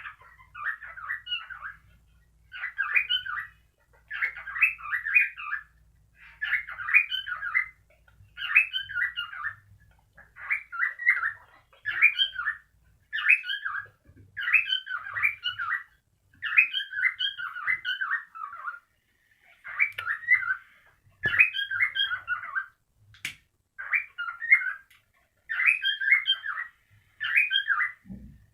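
Cockatiel calling in short, repeated warbling phrases, each about a second long, coming every one and a half to two seconds.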